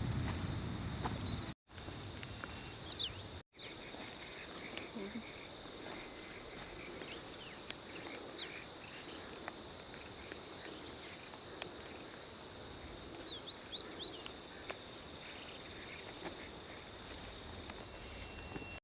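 Steady high-pitched insect drone with a few short bird chirps scattered through it. The sound cuts out twice briefly early on.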